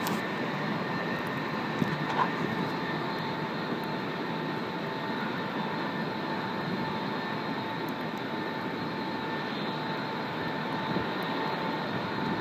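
Aircraft turbine noise: a steady whine held at a constant pitch over an even rush. A couple of brief knocks come about two seconds in.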